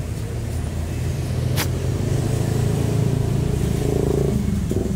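A motor vehicle engine running, its hum growing louder toward the end before easing off. A single sharp click comes about a second and a half in.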